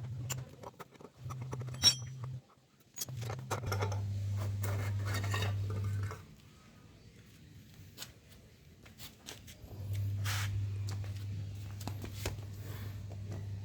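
Metal clinks, taps and scrapes of hands and tools working on a Yamaha RX King's exhaust silencer insert as it is taken apart, over a low steady hum that stops for a few seconds in the middle.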